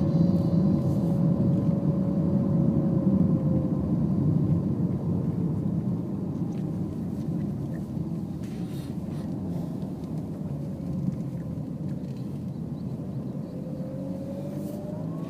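Car engine and tyre noise heard from inside the cabin, a steady low rumble. It fades as the car slows over the first half, and the engine note climbs again near the end as the car picks up speed.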